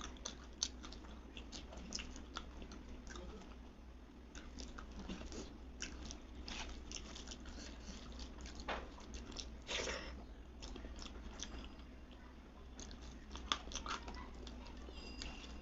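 Close-up eating sounds: a person biting and chewing food, with many irregular sharp crunchy clicks.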